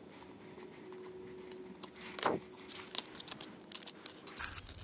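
Scattered light metal clicks and clinks of small steel shift-rail pieces being worked off the shafts of a manual transmission and set down on cardboard, with one louder clack a little past two seconds in.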